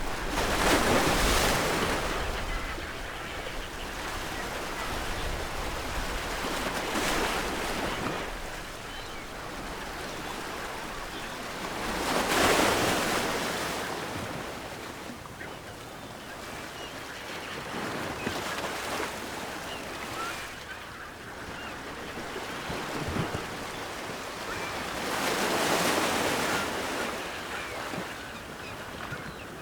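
Ocean waves breaking on the shore: a steady wash of surf that swells into a crash about every five to seven seconds, loudest about a second in and again near the middle.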